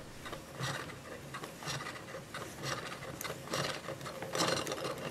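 Plastic mechanism of a Play-Doh candy-making playset being twisted by hand, with a rasping, ratcheting grind in irregular strokes as the dough is pressed down and formed into candy balls.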